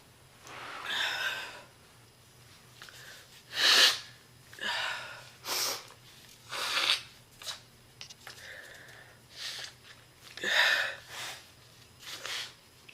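A woman's deep, chesty smoker's cough: a string of about a dozen separate coughs and breaths, the loudest about four seconds in. It is a heavy smoker's cough made worse by illness.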